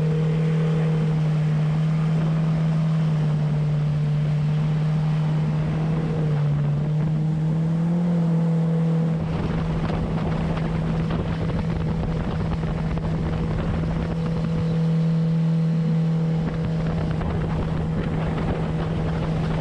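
Bass boat's outboard motor running at speed, a steady drone that dips briefly in pitch and comes back about six to eight seconds in. Wind on the microphone and rushing water grow louder from about nine seconds in.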